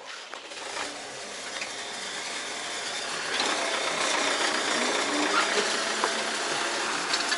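Tractor engine running while driving along, heard from the cab as a steady, even noise that grows louder over the first three seconds or so and then holds steady.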